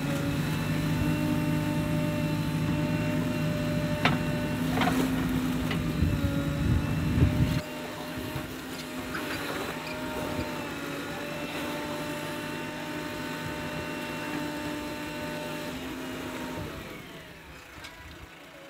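JCB backhoe loader's diesel engine running hard while the digger arm works wet clay, with a steady whine over it and a few knocks in the first seven seconds. About seven and a half seconds in, the deep engine sound drops away sharply, leaving the whine. The whine stops near the end.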